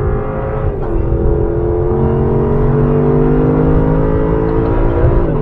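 Lexus 5.0-litre V8 under hard throttle, heard from inside the cabin: the engine note climbs steadily as the car accelerates, with a drop in pitch about a second in and another near the end as it shifts up.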